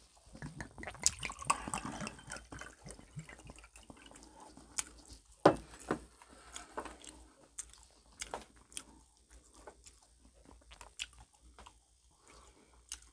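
Close-miked eating and drinking sounds: chewing with small wet mouth and liquid noises, broken by scattered sharp clicks, the loudest about five and a half seconds in.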